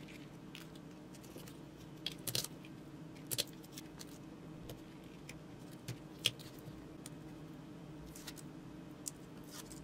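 Faint scattered clicks and rustles of hands handling a roll of tape, a snap-off utility knife and a small plastic action camera, the sharpest click about six seconds in, over a faint steady hum.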